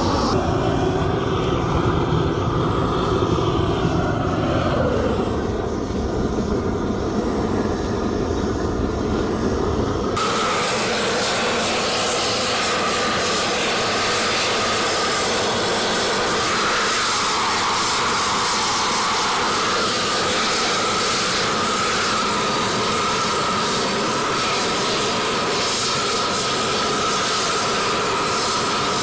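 A gas burner roaring at the wood-fired tub of melting lead, a low rumble with a tone sliding down. About ten seconds in it cuts sharply to a steady hiss with a faint whine, as molten lead runs into the keel mould.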